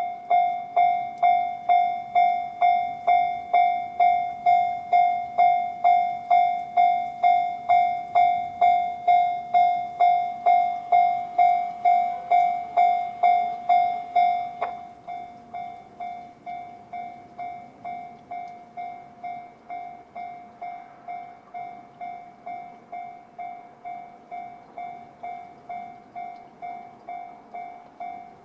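Japanese railway level-crossing electronic alarm in the JR standard tone, ringing about twice a second. It starts suddenly and drops to a noticeably quieter level about halfway through, then keeps ringing.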